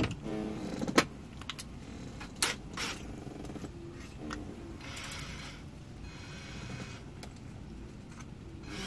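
Small metal tools and a drill bit being handled: a few sharp clicks and knocks, the loudest about a second in, then a stretch of light metallic rattling about five seconds in.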